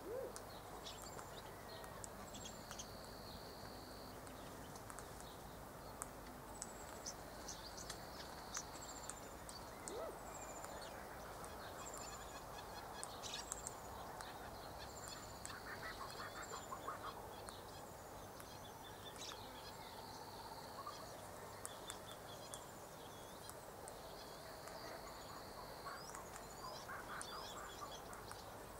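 Faint background calls of small birds or insects: short high chirps that drop in pitch, repeating about once a second, and a buzzy trill that comes back every few seconds. A few soft clicks cluster near the middle.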